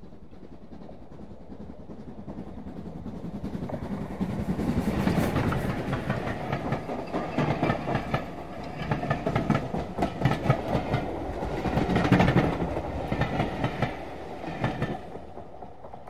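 Steam train passing at high speed: a rising rush as it approaches, then a loud clatter of wheels over rail joints as the carriages go by, fading away near the end.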